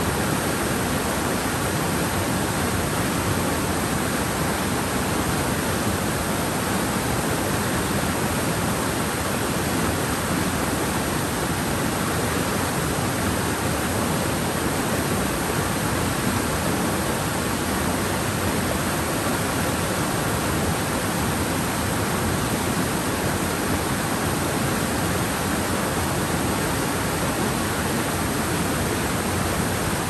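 Mountain stream flowing steadily: an unbroken, even wash of water sound.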